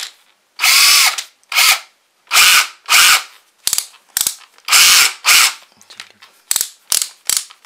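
DeWalt 18V XRP cordless hammer drill running on a homemade 18650 lithium-ion pack, its motor and gearbox whirring in about a dozen short trigger bursts that grow shorter toward the end. It runs in its fastest third speed with the chuck gripped by hand, and the hand cannot hold it back.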